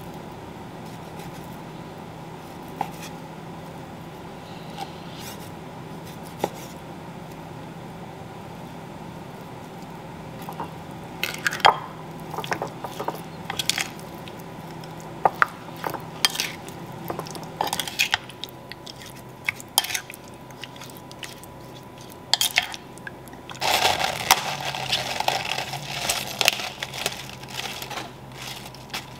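Kitchen prep sounds over a steady low hum. First a knife cuts raw beef on a wooden cutting board with a few light taps. Then a wooden spoon tosses beef cubes in marinade in a ceramic bowl, with clinks and wet squishing. Near the end a paper towel rustles and crinkles as it is laid over lettuce.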